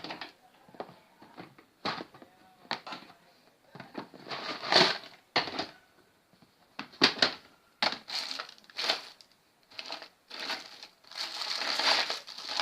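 Irregular clicks, scrapes and rustling from tools and parts being handled at a repair bench, in uneven clusters, the busiest just before the end.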